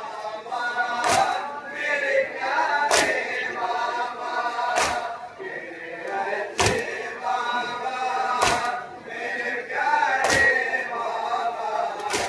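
A group of men chanting a noha (Shia lament) together, with a sharp collective strike of hands on chests about every two seconds, in time with the chant.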